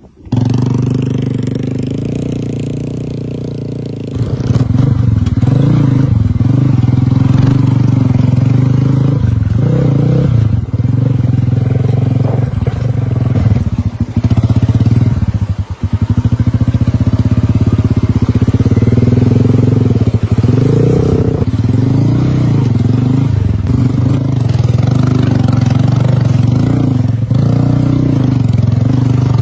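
Scrambler motorcycle engine running under way. It cuts in suddenly, picks up noticeably a few seconds in, then holds steady with brief dips in throttle several times.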